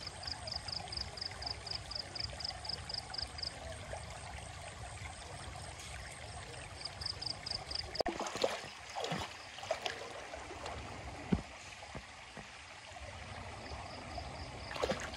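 Shallow rocky stream running steadily. From about 8 seconds in, feet wade and splash through the water. Early on and again around 7 seconds, a high chirp pulses evenly at about four times a second.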